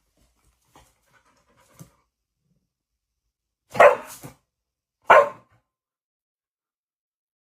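Two short, loud animal calls about a second apart, preceded by a few faint small sounds.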